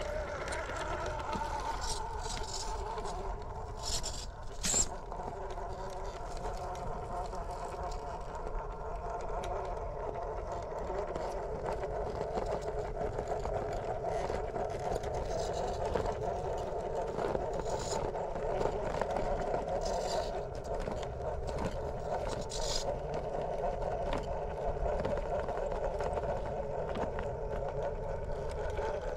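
Brushless motor and gear drivetrain of a 1/10-scale Traxxas TRX4 Sport RC rock crawler whining at low speed as it climbs rock, the pitch wavering with throttle and load. A couple of sharp clicks come about four and five seconds in.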